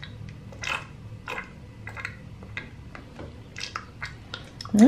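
Drinking sounds for a Baby Alive doll sipping from a toy juice box held to its mouth: about a dozen short, irregular sips and smacks.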